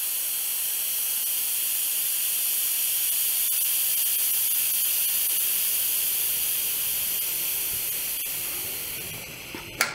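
A strong jet of steam hisses steadily out of an Instant Pot Rio Chef Series pressure cooker's release valve during a quick pressure release. It tapers off in the last couple of seconds as the pressure runs out. Just before the end a single sharp click is the float valve dropping, the sign that the pot is depressurised and the lid will unlock.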